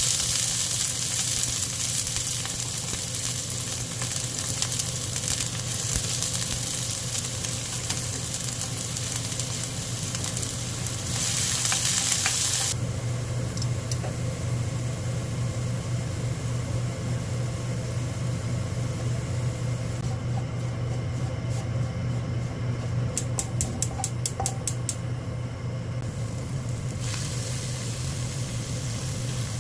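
Food sizzling in a frying pan while it is stirred. The sizzle is loud for the first twelve seconds or so, then settles to a softer hiss over a steady low hum, with a quick run of light ticks about three quarters of the way through.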